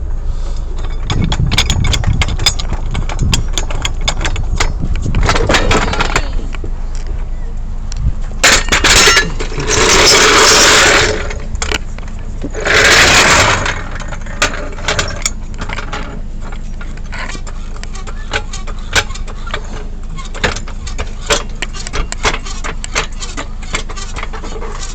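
A vehicle engine running steadily with many clicks and rattles, and three loud rushing noise bursts around the middle.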